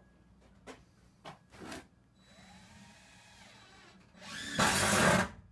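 Power tool running in short bursts: a few knocks, then a fainter stretch whose pitch rises and falls, then a loud burst of about a second near the end.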